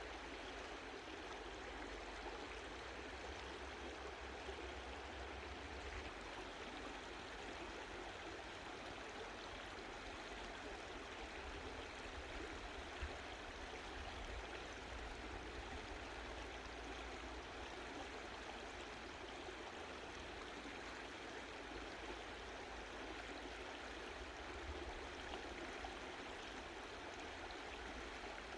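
Mountain stream flowing, a steady, gentle rush of water over rocks.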